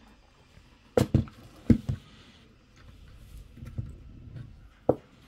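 Sharp clicks and knocks of a plastic antenna mount being pushed and worked into the metal rear panel of a mini PC chassis: four in quick succession about a second in, softer handling rattle a little later, and one more click near the end.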